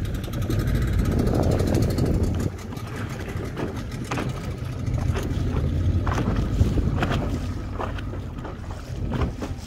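A boat engine running steadily, with gusts of wind on the microphone.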